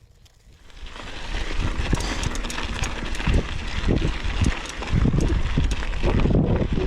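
Mountain bike rolling over a rough, rocky dirt trail: tyres crunching on gravel and the bike clattering over bumps, with a low rumble. It picks up about a second in and stays loud.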